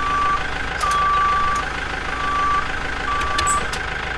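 Vehicle reversing alarm beeping four times, about once a second, over a steady engine rumble.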